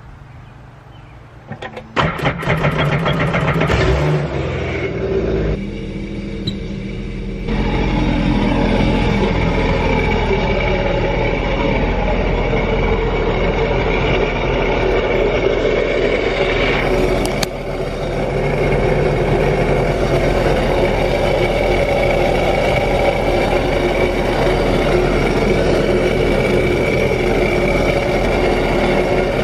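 2014 Sea-Doo GTI SE 130's three-cylinder four-stroke Rotax engine cranked by its starter about two seconds in, catching and then running steadily on its first start of the season. It gets louder about seven seconds in and holds a steady run as it warms up.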